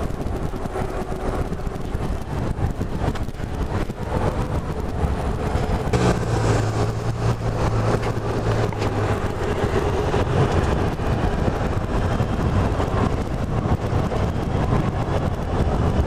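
Road traffic noise, steady throughout. A low engine hum from a nearby vehicle stands out for about three seconds near the middle.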